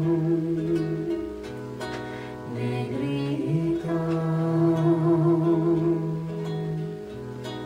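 Acoustic guitar playing a slow lullaby accompaniment. A woman hums long, wordless held notes over it.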